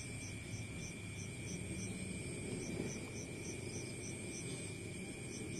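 Faint room background with an insect, most like a cricket, chirping steadily in short high pulses about three times a second, over a faint steady high tone.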